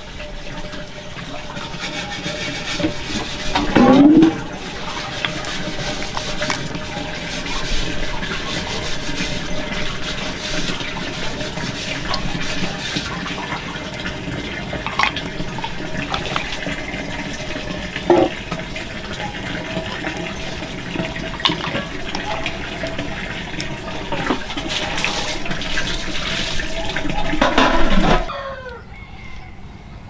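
Steady sound of running water, with scattered light clicks and two brief louder sliding sounds, one about four seconds in and one near the end, where the sound drops away sharply.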